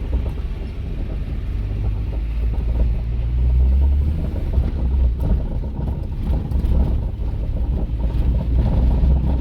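Peugeot 206 driving over a rough street, heard from inside the car: a steady road and engine rumble with a few sharp cracks from the rear suspension. The cracking is the sign of worn rear shock absorbers that need replacing.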